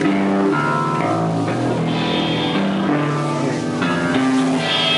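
Rock band playing live, guitar and bass carrying a run of held notes that change every half second or so.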